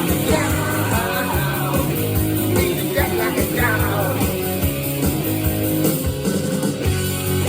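Rock music with electric guitar, a steady drum beat and singing.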